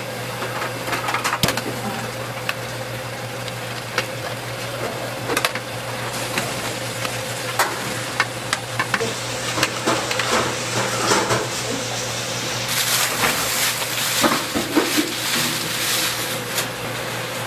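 Large aluminium stockpot of broth at a rolling boil, bubbling steadily over a low hum, with short metallic clinks of a mesh strainer against the pot. In the last few seconds the boiling grows louder and splashier as raw sliced beef goes into the pot.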